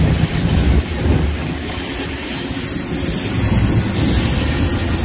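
Studio tour tram rolling along: a steady low rumble of the moving vehicle, heard from on board.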